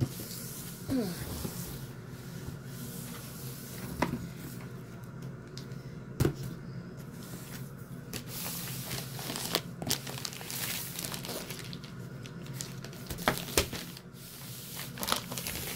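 Plastic poly mailer bag crinkling and rustling as it is picked up and handled, with scattered sharp knocks and clicks.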